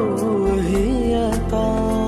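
Background music: a Hindi-Urdu devotional song, a voice singing a winding, ornamented phrase over a steady low bass. About halfway it gives way to a long held note.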